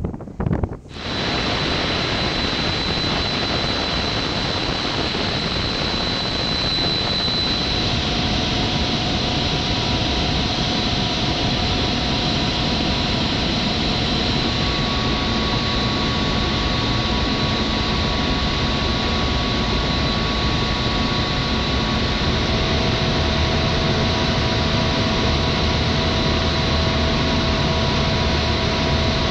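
F-22 Raptor's jet engines running at idle, a steady rushing roar with a high whine, kept running while the jet is hot-pit refuelled.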